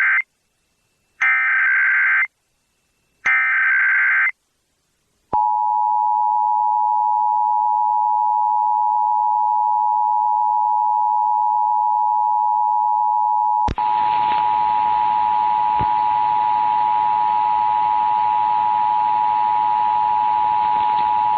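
Emergency Alert System tones on a broadcast: three one-second bursts of the screeching SAME data header, then from about five seconds in the steady two-tone attention signal (853 and 960 Hz sounded together). About two-thirds through, a click and then a hiss come in under the tone.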